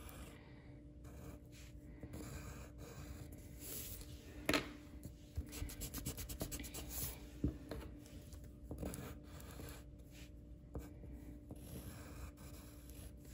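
Faint scratching of a drawing tool on paper as the ears of a cartoon dog are sketched: short strokes, with a quick run of back-and-forth strokes about halfway through.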